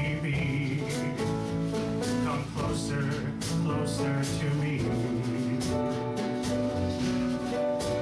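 Live instrumental accompaniment of a slow ballad playing steady held chords between the singer's lines, with light percussive ticks over it.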